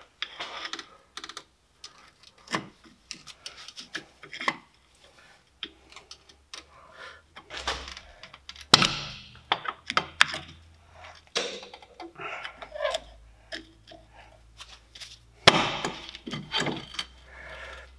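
Screwdriver levering and scraping between the brake pad and disc of an Opel Corsa C front brake caliper, forcing the caliper piston back: irregular metal scrapes and clicks, with a few sharper knocks, the loudest about nine and fifteen seconds in.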